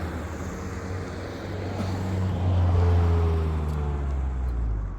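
A motor vehicle's engine running, growing louder towards the middle, then dropping in pitch and cutting off suddenly near the end.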